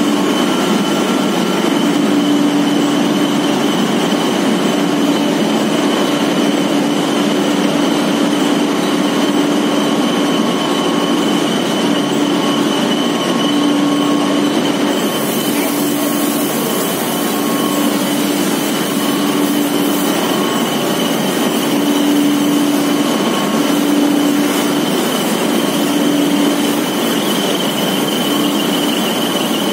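Cotton waste recycling machinery running: electric motors, a duct blower and belt-driven rollers make a loud, steady whir with a constant high whine and a lower hum that comes and goes.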